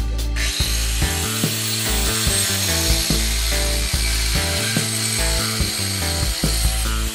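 Handheld angle grinder starting up about half a second in and then running steadily as its disc grinds away fiberglass, over background music.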